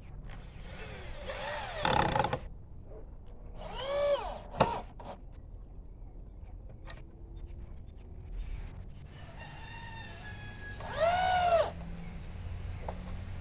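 Power drill driving screws into wood in three short runs, its motor whining up in pitch and back down each time, with a sharp click just after the second run.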